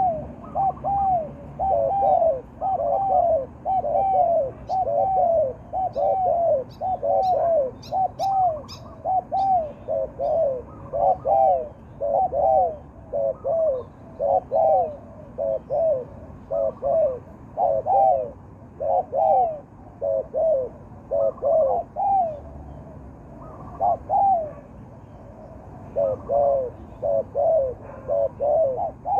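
Zebra doves cooing in repeated rolling phrases, about one a second, with brief pauses between runs. A few faint high ticks come about a quarter of the way in.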